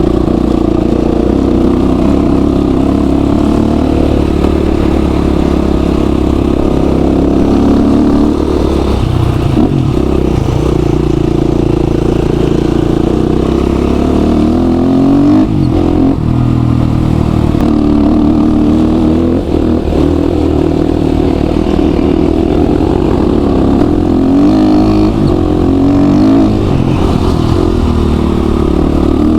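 Motorcycle engine running while riding on a dirt track, its pitch climbing and dropping several times with throttle and gear changes.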